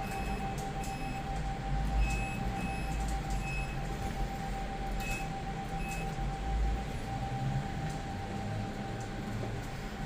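Inside a lift car: a steady hum with one held tone and a low rumble, and a series of short high beeps during the first six seconds.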